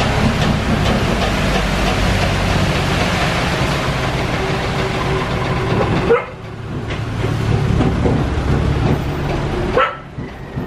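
Dump truck's diesel engine running steadily with a broad hiss over it while its raised bed tips out a load of sand. The sound breaks off briefly about six seconds in and drops away near the end.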